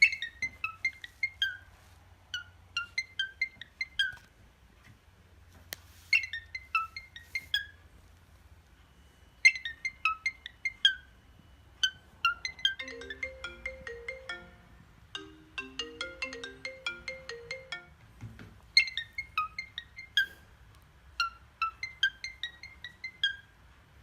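A short, bright electronic melody like a phone ringtone, made of quick falling runs of crisp notes repeated over and over in phrases with short gaps. Between about the middle and two-thirds of the way through, lower notes join in underneath.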